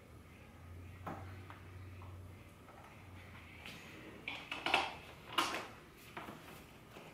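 Small hard parts, bolts and hand tools, clinking and clattering as they are handled, with a single click about a second in and a quick run of irregular knocks between about four and five and a half seconds in. A faint low hum sits under the first couple of seconds.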